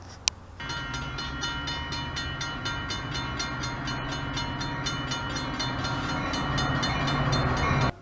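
Metra commuter train's diesel locomotive rumbling as it approaches, with steady tones and an even ringing of about four strokes a second over it. A sharp click comes just before the train sound starts, and the sound cuts off suddenly near the end.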